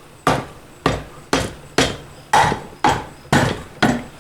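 Hammer striking the sump of a Briggs & Stratton V-twin engine about twice a second, eight sharp blows each with a short ring, knocking the bolted-free sump loose from the crankcase.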